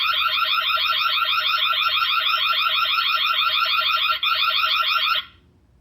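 TP-Link Tapo smart hub's built-in siren sounding its second alarm tone: a loud electronic warble of fast, repeating rising chirps. It has a brief break a little after four seconds in and cuts off about five seconds in.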